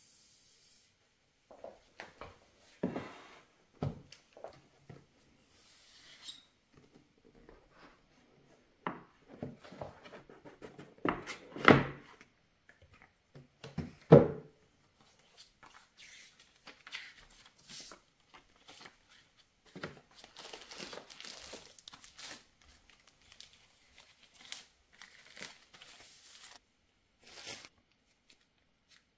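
Unboxing a tablet: plastic wrapping and paper rustling, crinkling and tearing, with scattered knocks of the cardboard box and tablet being handled. Two louder knocks come near the middle, and a longer stretch of rustling follows.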